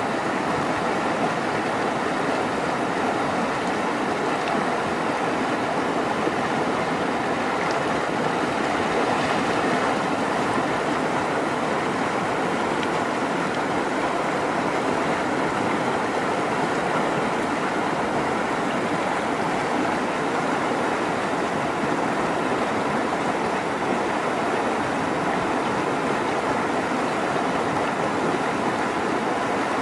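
Shallow rocky stream rushing steadily over boulders in small white-water rapids.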